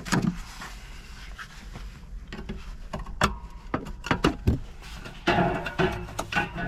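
Scattered metal clicks, taps and scrapes as a screwdriver and hands work a thin, pliable aluminium glass-retaining frame off a stove door. The clicks cluster in the middle, and a longer scraping spell comes near the end.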